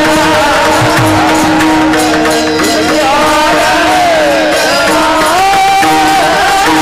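Varkari bhajan music, a panchapadi: a sung melody that bends and slides over a steady held drone note, with hand-drum strokes and jingling cymbals keeping the beat.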